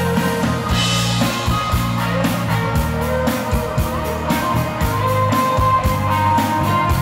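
Dansband playing live: an instrumental passage with a steady beat and sustained notes, and a cymbal crash about a second in.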